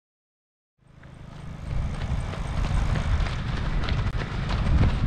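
A group of marathon runners' footfalls on the road, quick and uneven, over a steady low vehicle rumble; the sound fades in from silence about a second in.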